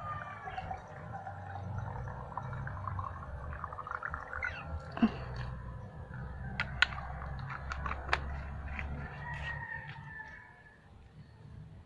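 A small plastic hand spray bottle being handled and filled, giving a few sharp plastic clicks about halfway through, over a low steady background rumble.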